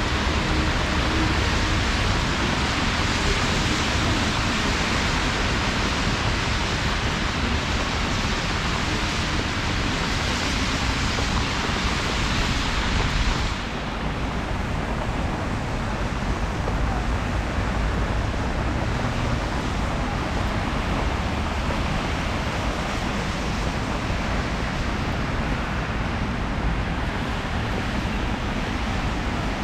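Steady rain-soaked city street noise: rain hiss mixed with the rush of traffic. About halfway through, the higher hiss drops away abruptly while the lower rush carries on.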